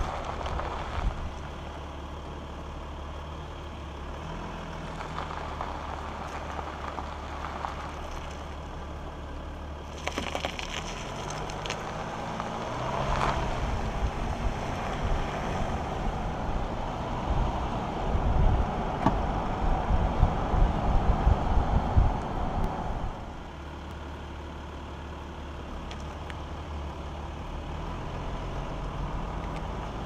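Tyre and road noise from a 2016 Audi Q7 3.0 TDI's front wheel as it drives, picked up right beside the wheel: gravel crackling under the tyre at first, then a steady rolling hiss on tarmac. For about ten seconds in the middle it grows louder, with gusty low rumbling, then settles back to the steadier hiss.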